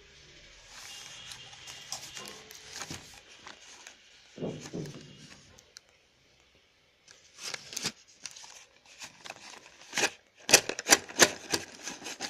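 Cardboard slate-pencil box being handled and opened, its flap rustling and scraping. Then a run of sharp clicks and clatter as the slate pencils slide out of the box and knock against each other, loudest near the end.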